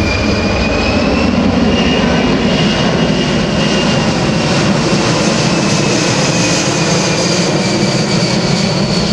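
Boeing C-17 Globemaster III's four Pratt & Whitney F117 turbofans running loud and steady as the jet flies a slow pass with slats and flaps extended. A high engine whine rises slightly about a second in and sinks slowly near the end.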